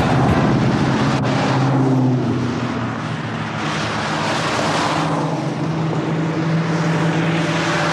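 Several cars passing one after another, each swelling and fading away.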